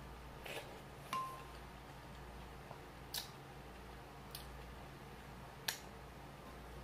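Close-miked eating of ramyun noodles: a handful of sparse, sharp mouth clicks and smacks while chewing, with one brief ringing tick about a second in.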